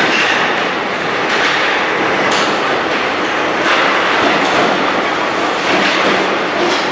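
Paris Métro line 7 MF77 train running into the station, a loud, steady running noise with a click every second or so from the wheels on the rails.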